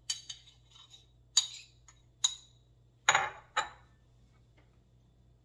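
Metal spoon clinking and scraping against a small bowl as cream cheese is scooped out, with several sharp clinks over the first two seconds or so. Then a heavier knock about three seconds in as the bowl is set down on the counter, and one more clink.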